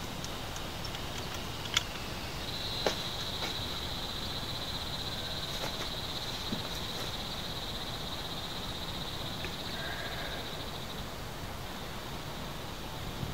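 An insect trilling steadily at a high pitch, starting about two seconds in and stopping a couple of seconds before the end, over a steady background hiss. Two sharp clicks come in the first three seconds.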